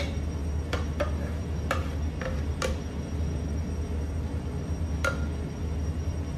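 About half a dozen light clinks of a metal jug and spatula against stainless steel baking trays, as cheese sauce is poured and spread. Under them runs a steady low hum.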